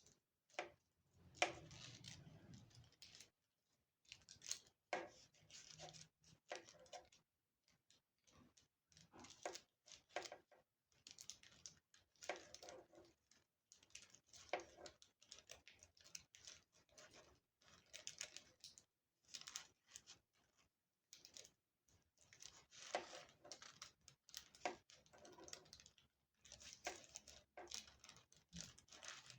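Scissors cutting paper: faint, irregular runs of short snips and paper rustling that stop and start.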